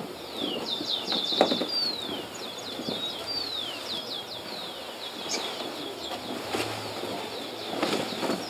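Small birds chirping over and over in quick falling notes, with cloth rustling as a poncho is pulled over a child's head and settled on her shoulders.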